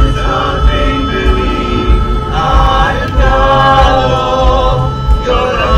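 Men's a cappella vocal group singing held chords in close harmony, amplified through microphones and a PA speaker.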